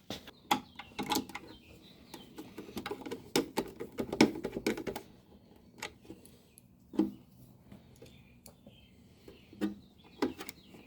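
Irregular clicks and light knocks of small parts and hand tools being handled, as during fastening of small screws on a garage door opener's belt guard. The clicks come thick in the first half and grow sparse later.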